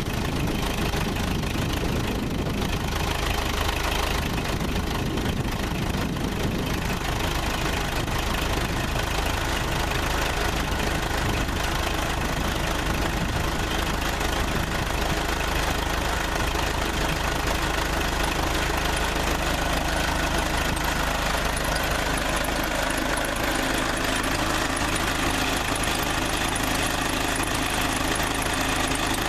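Case 580C's four-cylinder diesel engine idling steadily in the first half-minute after a cold start, freshly overhauled.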